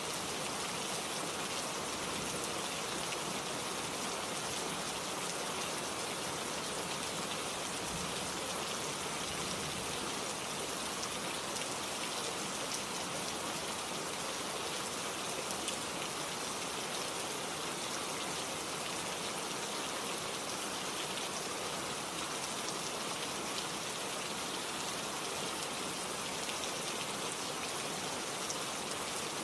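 Steady rain falling, an even hiss with many fine drop patters on surfaces.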